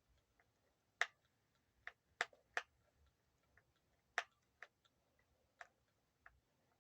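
Quiet, irregular sharp clicks and taps of a screwdriver and small metal screws being handled while screws are backed out of a guitar's plastic cover plate. There are about ten clicks at uneven spacing, and the loudest come about a second in and around two and four seconds in.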